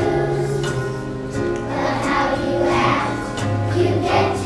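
A choir of young children singing together over an instrumental accompaniment with held bass notes.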